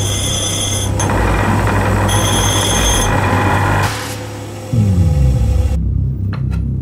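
Electric bench grinder running with a steady hum, a steel screw held against its grinding wheel.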